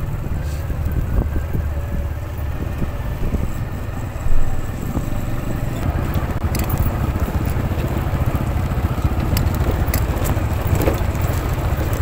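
Small automatic scooters running slowly down a rough gravel and dirt track, engine rumble mixed with tyres rolling over loose stones and scattered sharp clicks, with a louder knock about four seconds in.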